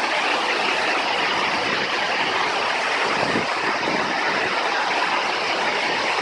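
Waterfall water rushing and splashing as a steady, even roar of noise.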